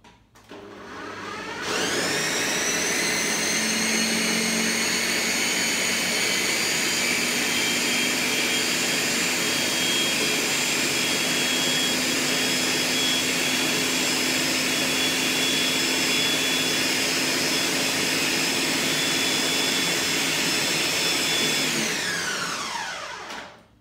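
Countertop blender running on a thick load of raw cashews, canned tomatoes and spices, blending it into a dip. The motor spins up with a rising whine over the first two seconds, runs steadily for about twenty seconds, then winds down with a falling whine near the end.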